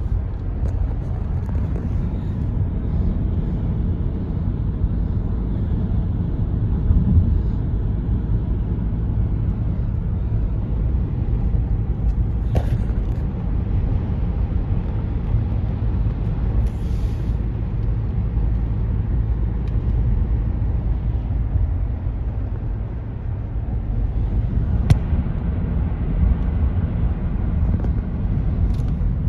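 Steady low road rumble of a moving car, heard from inside the cabin, with a single sharp tick near the end.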